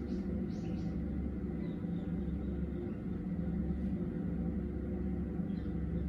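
Steady low mechanical rumble. A few short bird chirps sound in the first second.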